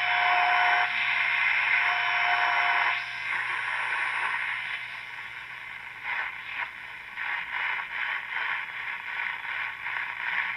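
Caprice AM radio playing static through its speaker, with a steady whistle tone over loud hiss for the first three seconds. It then drops to quieter, fluttering, crackling static.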